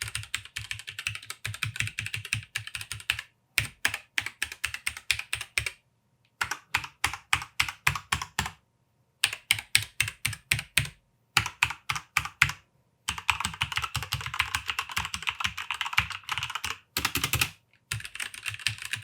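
Fast typing on compact mechanical keyboards with red linear switches: a Womier K66 with Gateron-type reds and a Corsair K65 with Cherry MX Reds. The keystrokes come in quick bursts of a few seconds, with short pauses between them.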